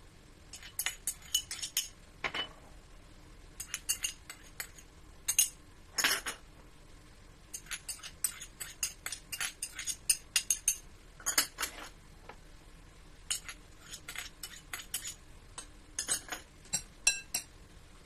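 Metal spoon clinking and scraping against small ceramic dishes and a glass mixing bowl as chopped vegetables are scraped into the bowl: irregular clusters of sharp clinks.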